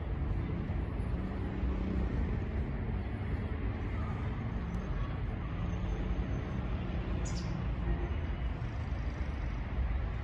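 Steady low rumble of distant road traffic, with one brief high chirp about seven seconds in.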